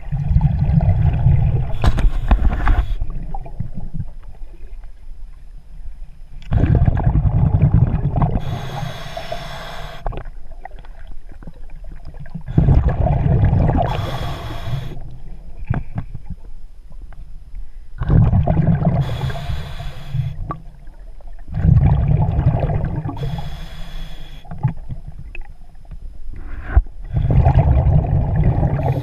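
Underwater breathing through a scuba regulator: the rumbling gurgle of exhaled bubbles alternating with the hiss of each inhalation, one full breath about every five to six seconds.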